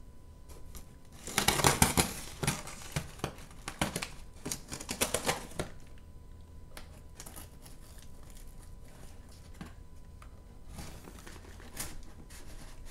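Plastic packing tape being peeled off a cardboard shipping box: four short crackling rips in the first half, then quieter scratching and clicks as the tape is worked loose.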